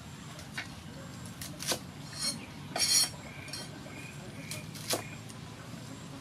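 A cleaver cutting green vegetable stems on a wooden chopping board: about half a dozen sharp, irregular knocks of the blade on the wood, with crisp snaps of the stems.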